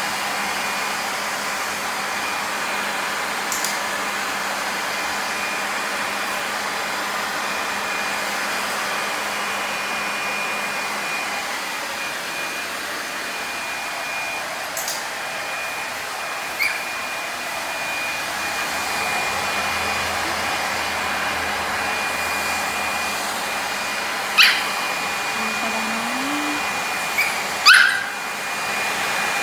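A hair dryer running steadily. Near the end, a dog gives a few short, high yips.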